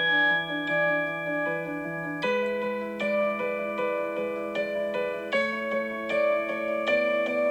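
Smartphone default alarm tone playing a looping chime melody in an electric-piano-like timbre, notes struck in quick repeated patterns over chords that change about two seconds in and again near the middle.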